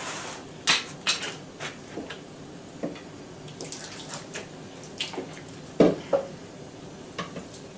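Scattered clinks and knocks of the old sump pump's pipe and fittings being handled at the pit, with water dripping and trickling. The loudest is a pair of sharp knocks about six seconds in.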